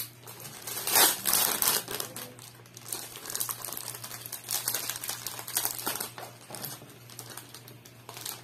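Clear plastic packaging crinkling and rustling as it is handled and unwrapped, in irregular bursts, loudest about a second in.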